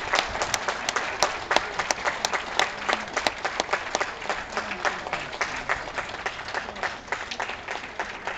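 Audience applauding, many hands clapping, with one nearby pair of hands clapping about three times a second over the first few seconds; the applause slowly thins toward the end.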